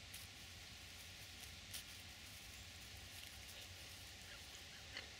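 Near silence: a faint steady hiss with a few soft, scattered ticks and rustles.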